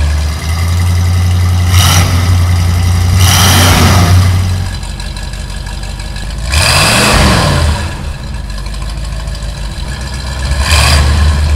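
Cartoon dump truck engine sound effect: a low steady engine rumble with several revs that rise and fall in pitch. The rumble drops away about halfway through and comes back near the end.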